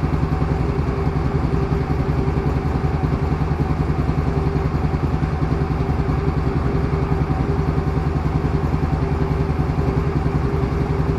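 The Can-Am Outlander 850 XT ATV's Rotax V-twin engine idling steadily, with a fast, even firing pulse.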